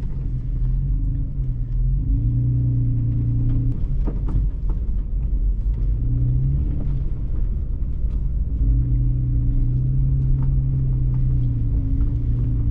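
Toyota FJ Cruiser's 4.0-litre V6 running at low revs as the truck crawls over rocky trail, heard from inside the cabin, its note swelling and easing in stretches of a few seconds as the throttle comes on and off. A few short knocks sound over the low rumble.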